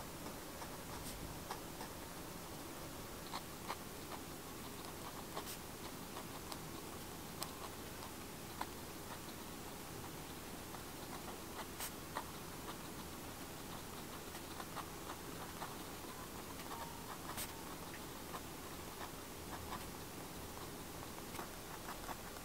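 Fountain pen nib writing on kraft paper: faint scratching and small irregular ticks with each stroke, over a steady faint hiss.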